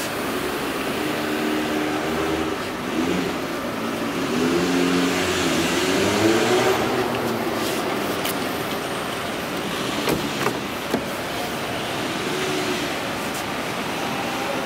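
Motor vehicle engines nearby, their pitch rising and falling as they rev, over a steady background noise, with a few sharp clicks about ten seconds in.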